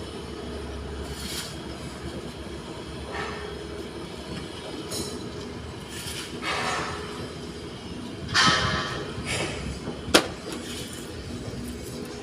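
Heavy machinery running with a steady low hum, broken by two scraping, rushing noises and one sharp knock near the end.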